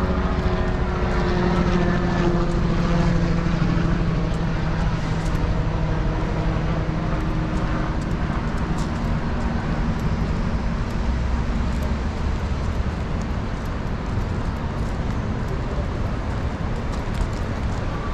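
A vehicle engine running steadily under constant road and wind noise, with a low rumble and a faint hum that fades over the first few seconds.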